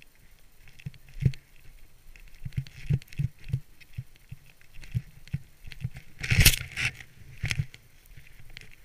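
Riding down a snowy slope, heard through a helmet-mounted camera: irregular low thumps and knocks as the rider goes over bumps in the snow, and a loud scrape through the snow about six and a half seconds in, with a shorter one about a second later.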